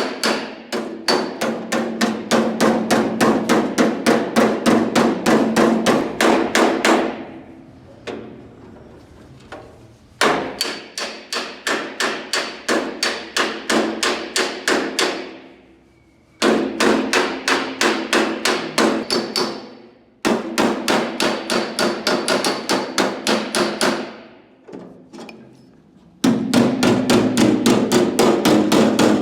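Body hammer beating the hard 20-gauge sheet steel of a car door edge in fast runs of about four to five blows a second, each blow with a short metallic ring. The hammering breaks off briefly four times and starts again.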